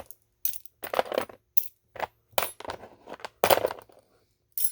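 Loose metal sewing machine presser feet clinking against each other as they are handled and sorted, a quick irregular series of sharp metallic clinks.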